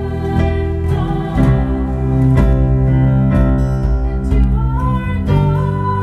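A live band playing a slow song: acoustic guitar and bass guitar under a woman's singing voice holding long notes.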